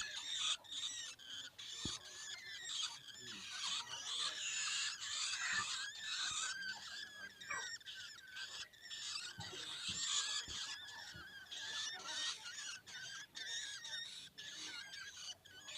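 Hungry long-tailed shrike (cendet) nestlings begging with incessant, high-pitched squeaky chattering calls, several voices overlapping; the noise is the sign they are hungry for food.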